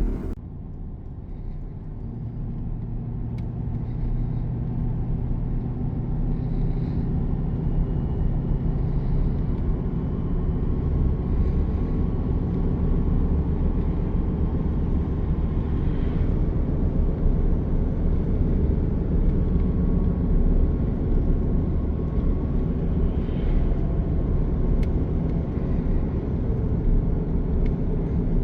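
Vehicle driving, heard from inside: a steady low engine and road rumble that builds over the first few seconds as it gets up to speed, then holds steady.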